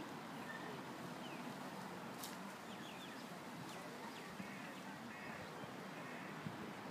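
Outdoor park background: a steady low hiss with scattered short bird calls and chirps, and a light click about two seconds in.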